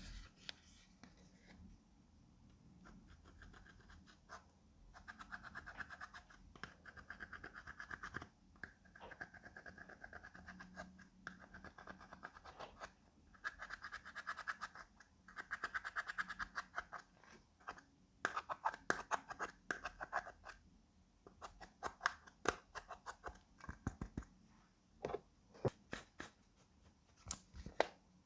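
Clear slime being squished and kneaded by hand, giving runs of crackly, wet clicks and small pops, a few seconds at a time, with short pauses between.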